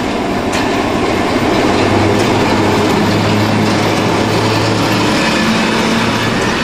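ČD class 750 diesel-electric locomotive passing with its passenger coaches: the steady drone of its V12 diesel engine over the rumble of the train, with a few sharp clicks from the wheels on the rails.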